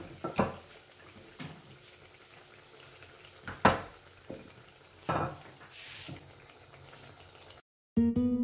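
Spinach puri frying in hot oil with a low, steady sizzle, broken by a few sharp clinks and knocks of kitchen utensils, the loudest about three and a half seconds in. Near the end the sound cuts out briefly and soft piano music begins.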